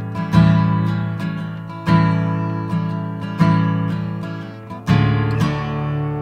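Acoustic guitar strummed in a slow, swaying rhythm. A strong chord comes about every one and a half seconds, with lighter strums between, and each chord rings and fades into the next.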